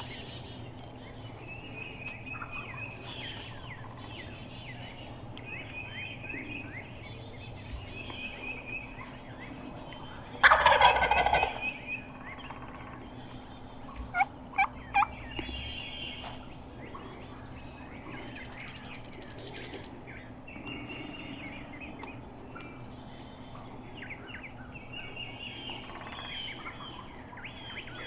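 A wild turkey gobbler gobbles loudly about ten seconds in and starts another gobble at the very end. Three short, sharp notes come a few seconds after the first gobble, and small songbirds chirp faintly throughout.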